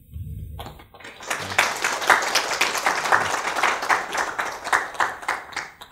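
Audience applauding, starting about half a second in and stopping just before the end.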